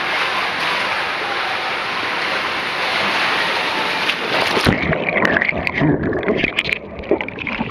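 Steady rush of water and a rider sliding through an enclosed 1.2 m tube waterslide. About two-thirds of the way through it cuts off suddenly into splashing as the rider plunges into the landing pool, followed by muffled bubbling and gurgling with the microphone underwater.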